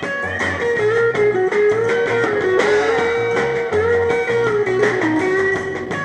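Live rock band playing an instrumental passage: a sustained lead melody with smoothly bending notes over a stepping bass line and drums.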